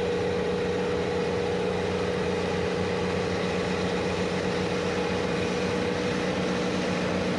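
Heavy farm machinery engine running steadily at an even speed, a constant hum with no revving.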